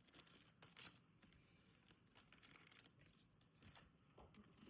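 Near silence, with faint crinkling and a few soft clicks from trading cards and their pack wrappers being handled.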